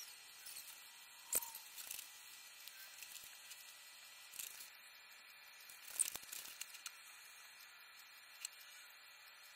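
Faint room hiss broken by a few short, sharp clicks and knocks, the loudest about a second and a half in and about six seconds in.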